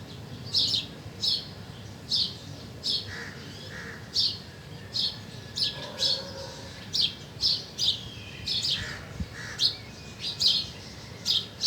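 A bird chirping over and over, short, sharp, high calls about one to two a second; a fainter, lower two-note call comes twice, about three and nine seconds in.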